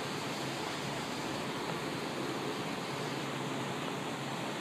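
Steady, even rushing hiss beside a CPTM Series 1700 electric commuter train standing at the platform with its doors open, from the train's running equipment.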